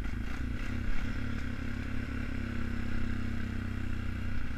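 Engine of a 2002 Honda Foreman 450 ATV, a single-cylinder four-stroke, running steadily as the quad rolls downhill through snow without brakes, with some rattling.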